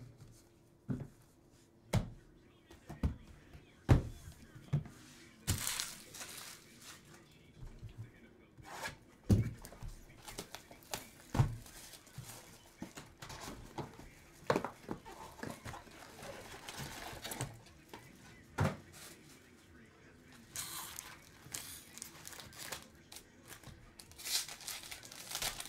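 Cellophane wrappers of Panini Prizm cello packs crinkling and being torn open, with scattered sharp taps and knocks of cards and packs handled on a table.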